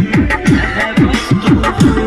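Loud music with a fast, steady beat, its low drum hits dropping in pitch.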